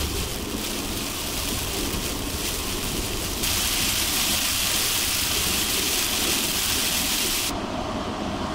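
Heavy rain on a car driving along a wet highway: a steady rushing hiss of rain and tyre spray over a low road rumble. The hiss gets louder about three and a half seconds in and drops away briefly near the end.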